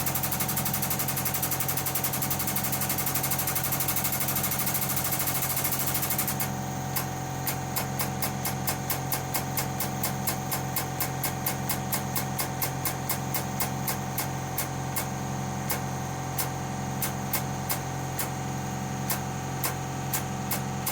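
Air-powered shop press working: a steady hiss of air for about six seconds, then a rapid train of clicks, about three a second at first and more spaced out toward the end, over a steady low hum as it presses a split bush into a gear.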